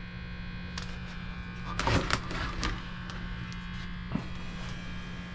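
Steady electrical buzz and hum in a small room, with a few short knocks and clicks clustered around two seconds in, as the train horn is handled.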